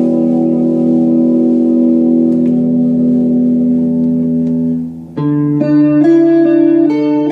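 Electric guitar, a Stratocaster played through a Yamaha RA-200 rotary-speaker amp. A held chord rings and slowly dies away. About five seconds in, a new chord is struck, and then notes change over it.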